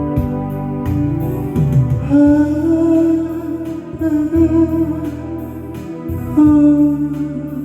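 Music: a slow song with guitar accompaniment and long held melody notes between sung lines.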